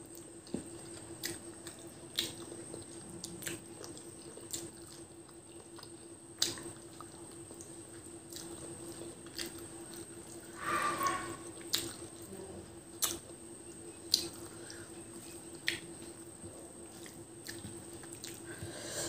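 Close-up wet eating sounds of rice and chicken curry eaten by hand: sharp mouth smacks and clicks about once a second, with a longer squelching sound about halfway through. A steady faint hum runs underneath.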